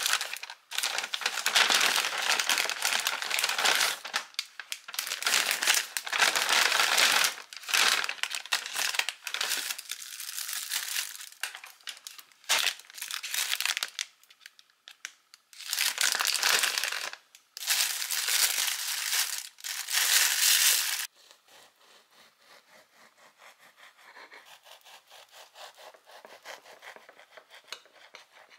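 Paper bag and plastic bread and pastry wrappers crinkling as they are handled and unpacked, in loud bursts with short pauses for about twenty seconds. After that, only faint, soft handling sounds.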